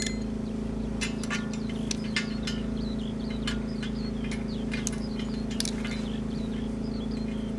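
A steady machine hum, with scattered sharp clicks and many short high chirps over it.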